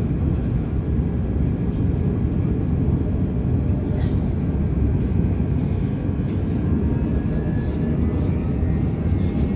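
Steady low rumble of a moving passenger train heard from inside the carriage, with faint light clicks over it.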